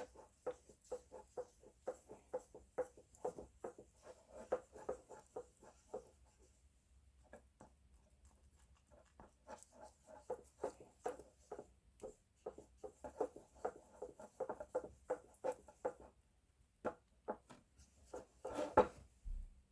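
Faint, irregular light clicks and taps from small objects being handled, in two runs with a pause of a few seconds in the middle.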